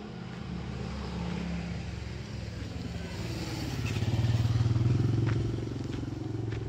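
Motorcycle engine passing along the street, growing louder to a peak about four to five seconds in, then fading.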